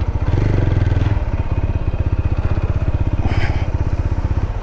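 Single-cylinder engine of a TVS Apache RTR 160 4V motorcycle running at low revs, its firing pulses heard as a rapid, even beat.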